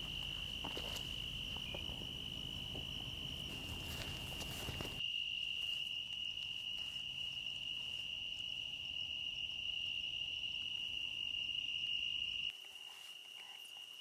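Evening insect chorus: a steady, unbroken high-pitched trill. Low background noise drops away about five seconds in, and everything gets quieter near the end.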